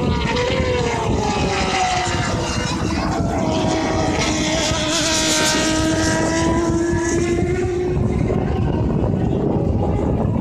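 Turismo Carretera race car engines running at speed around the circuit: a steady, loud drone of several engines whose pitch slowly slides down and back up as the cars move around the track.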